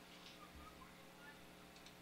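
Near silence: room tone with a faint steady hum and two faint clicks.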